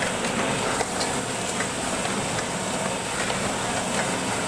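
Super Solna–model two-colour sheet-fed offset printing press running: a steady mechanical hiss and rumble with a light tick about every 0.8 seconds.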